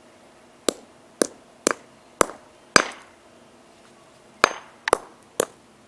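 Hammer blows: five sharp strikes about half a second apart, a pause, then three more.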